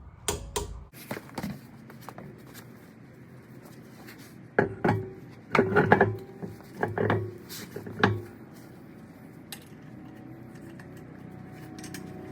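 Metal tools and parts clanking and clinking: a few sharp knocks in the first second or so, then a quicker run of ringing metal clanks in the middle, then only faint background.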